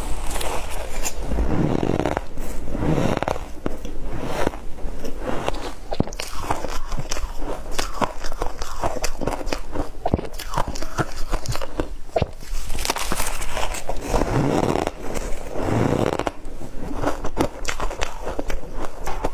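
A person chewing and crunching shaved ice close to the microphone: a steady crackle of small crunches, with heavier bouts of biting about a second in and again about two-thirds of the way through.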